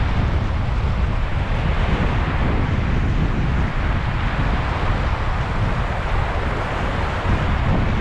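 Sea surf washing steadily over a sand and pebble beach, with wind buffeting the microphone as a heavy low rumble underneath.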